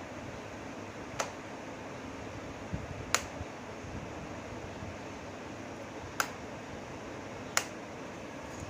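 Fan heater running with a steady blowing hiss, broken by four sharp clicks spread over several seconds and one soft low knock.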